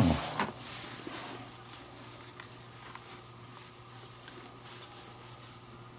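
Faint rustling and light scattered ticks of a leather glove lace being handled and worked through a baseball glove's web, over a low steady hum.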